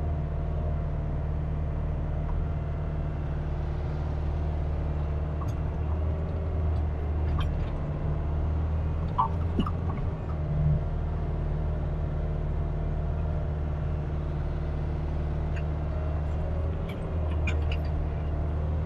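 Kubota RX-503S mini excavator's diesel engine running steadily, heard from the operator's seat, with a few faint light knocks as the bucket works the soil.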